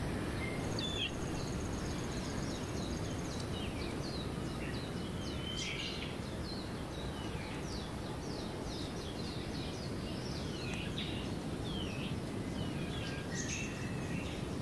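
Small birds giving many short, high chirps, mostly quick falling notes in irregular runs, over a steady low background rumble of outdoor noise.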